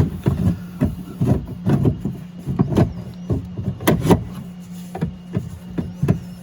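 Irregular knocks, clicks and rattles of a door lock actuator (latch assembly) being twisted and worked inside the door shell of a 2013 BMW 320xi, over a steady low hum.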